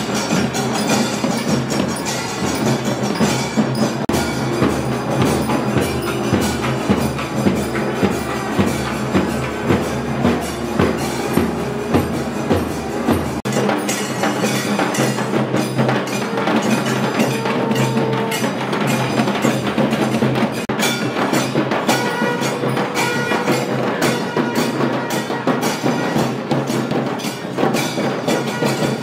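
Festival procession percussion band of drums and struck metal percussion beating a steady rhythm, with ringing metallic strokes. About halfway through, the sound changes to a thinner, busier mix of drums and metal.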